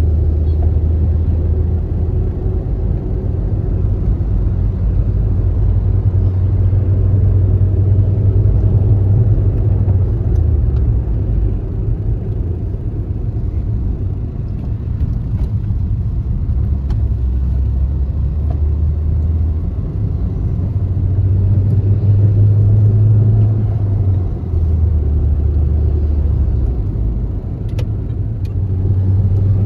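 Car driving along a road, heard from inside the cabin: a steady low rumble of engine and road noise, its low hum shifting up and down in pitch a few times as the speed changes.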